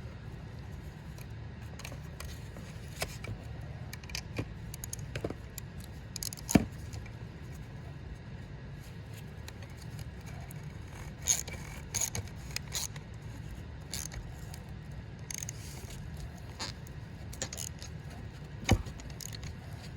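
Metal parts and tools being handled while a piston is fitted into a cylinder liner: scattered clicks and scrapes, with a sharp knock about six and a half seconds in, a cluster of clicks around eleven to thirteen seconds, and another knock near the end, over a steady low hum.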